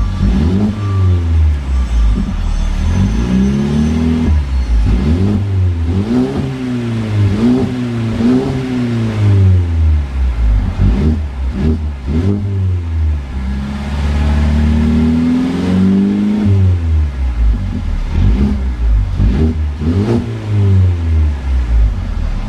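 Mercedes-Benz CLA250's turbocharged 2.0-litre four-cylinder engine, standing still and revved through a HE'ART aftermarket exhaust system: repeated quick throttle blips that rise and fall, with one longer held rev about two-thirds of the way through.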